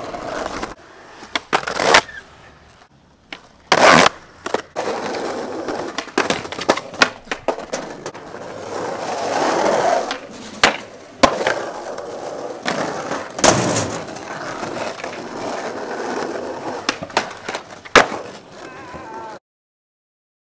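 Skateboard wheels rolling over asphalt and concrete, broken by many sharp cracks of tail pops, board slaps and landings. The sound cuts off suddenly about a second before the end.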